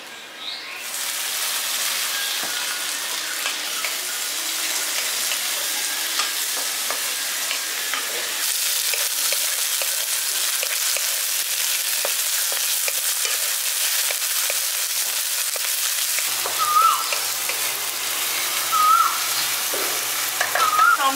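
Chopped tomato and fried onion sizzling in hot mustard oil in a kadai, stirred with a wooden spatula that clicks and scrapes against the pan now and then. The sizzle grows louder about eight seconds in. A few short high chirps come near the end.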